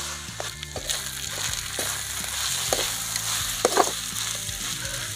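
Chicken pieces and masala sizzling in oil in an aluminium kadai while being stirred, with the stirring utensil scraping and knocking against the pan several times, loudest a little past three and a half seconds in.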